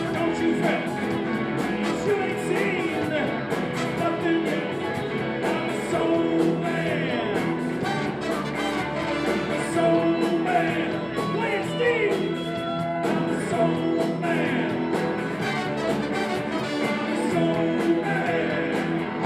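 Rock-and-roll music with singing over a steady drum beat.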